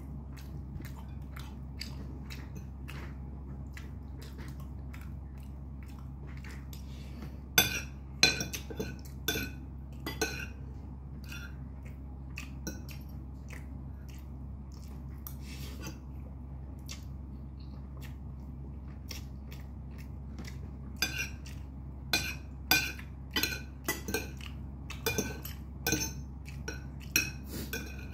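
Metal fork and spoon clinking and scraping on a ceramic plate while a person chews a mouthful of instant noodles, with louder runs of clinks about eight seconds in and again from about twenty seconds on. A steady low hum sits underneath.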